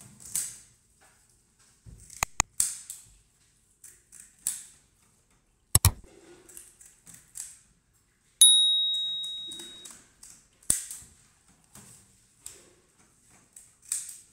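Short, irregular scraping strokes of a hand scaler taking the scales off a fish. Near the middle, an added subscribe-button sound effect: a sharp click, then a bell ding about two and a half seconds later that rings out for over a second and is the loudest sound here.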